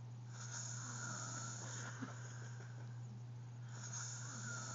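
A sleeping man snoring: two long snores about three seconds apart, over a steady low hum.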